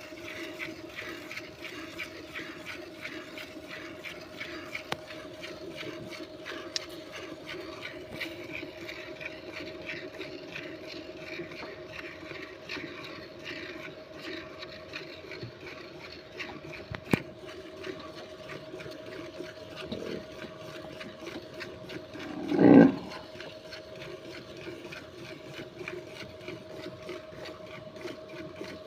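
Milk squirting into a steel bucket as a cow is milked by hand, over a steady hum. About two-thirds of the way through comes one short, low animal call, louder than everything else.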